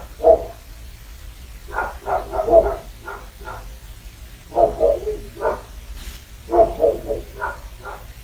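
Two dogs barking in quick volleys of several barks at a time, with short pauses between the volleys.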